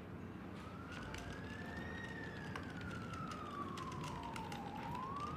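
Emergency-vehicle siren wailing faintly: a slow rise in pitch, a long slow fall, then a rise again near the end, over a steady low room hum.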